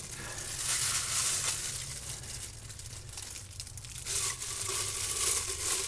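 Thin disposable plastic gloves crinkling and rustling as hands handle raw chicken legs and pack them into a glass canning jar.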